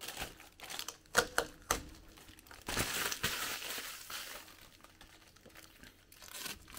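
Plastic packaging crinkling and rustling as it is handled, with scattered sharp crackles and a longer rustle about three seconds in.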